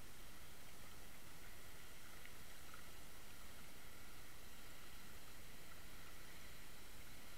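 Steady underwater hiss picked up by a Water Wolf camera in its sealed housing as it is pulled through the water on a fishing line, with a few faint ticks.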